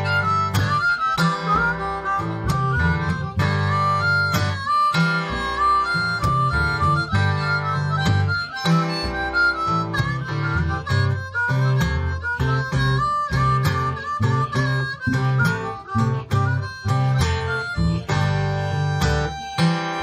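A blues harmonica plays with bending, wavering notes over a rhythmically strummed Eastman acoustic guitar and the steady low pulse of a washtub bass.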